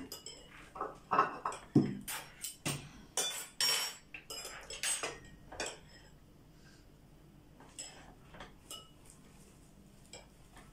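Steel cooking pots and a serving spoon clinking and clattering as food is dished onto a plate at the stove. The clatter is busy for the first six seconds or so, then only occasional light clinks.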